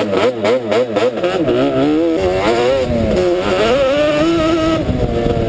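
Sport ATV engine revving as the quad is ridden: its pitch rises and falls quickly with the throttle over the first couple of seconds, then climbs under acceleration about three seconds in.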